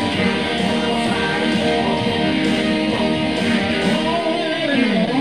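Electric guitar solo on a Telecaster-style guitar: held lead notes, then a long slide down in pitch near the end that swoops sharply back up.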